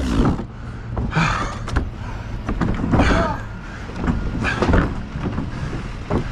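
Heavy plastic hot tub shell scraping and sliding into a cargo trailer, in about four separate shoves roughly a second and a half apart.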